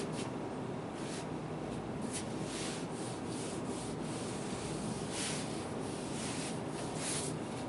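Faint, soft rustling and scuffing from a person moving about, a few brief swishes over a steady background hiss.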